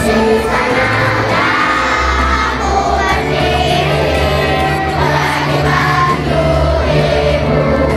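A large crowd of schoolchildren singing together in unison, over steady bass from backing music.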